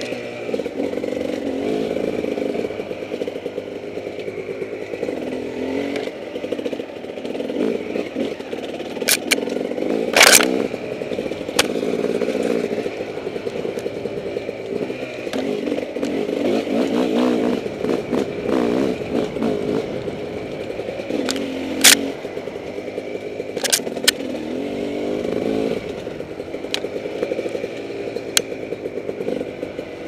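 Off-road motorcycle engine running hard on a trail, its pitch rising and falling continuously as the throttle is worked. Sharp knocks and clatter come through now and then, loudest about ten seconds in and again at about 22 seconds.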